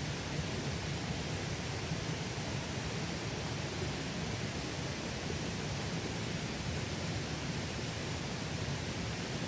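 Mountain stream water flowing steadily, an even rushing hiss that does not change.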